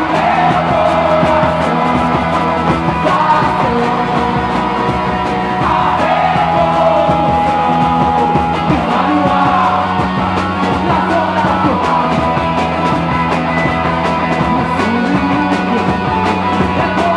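Live rock band playing: a woman sings lead over electric guitar and drums.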